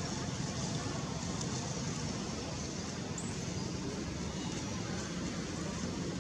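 Steady low rumble of outdoor background noise, with no clear calls or distinct events.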